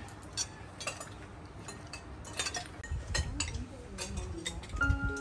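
Spoons and chopsticks clinking against ceramic bowls and plates during a meal, in scattered light clicks. Near the end a marimba-like music tune begins.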